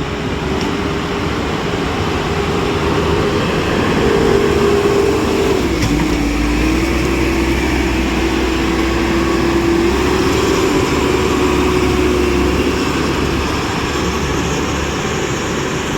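Heavy tractor's diesel engine running hard while working the road. Its drone steps up in pitch about four seconds in, drops sharply near six seconds, then steadies.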